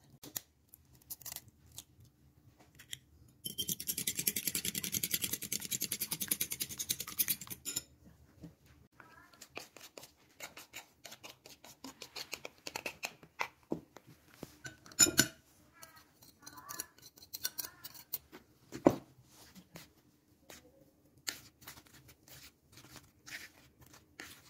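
Food-prep handling sounds at a table. A few seconds in, there is about four seconds of loud, dry rustling. After that come scattered clicks, taps and scrapes from plastic bowls and a spoon as flour is poured into a plastic plate and stirred.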